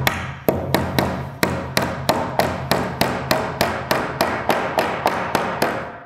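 Claw hammer driving joist hanger nails through a metal rafter hanger into a wooden rafter: a quick, even run of strikes, about three a second, that stops near the end.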